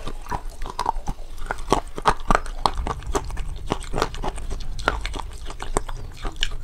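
Close-miked crunching and chewing of KitKat chocolate, with dense, irregular sharp crunches as the pieces are bitten and chewed.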